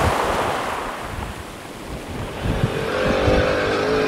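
A rushing noise fades over the first two seconds. Then, about two and a half seconds in, a quad bike's small engine comes in and runs at a steady pitch.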